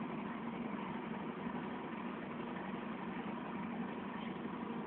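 A steady, even engine hum, a motor running at constant speed.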